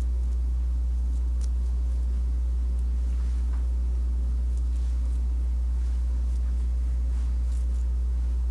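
A steady low hum with a few faint clicks and no speech.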